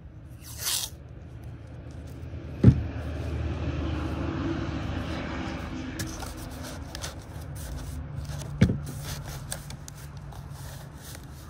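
A large sheet of cardboard handled on a canvas tent: it scrapes and slides over the fabric, with a short rip just after the start and two sharp knocks, one a little under three seconds in and one about six seconds later, over a low steady rumble.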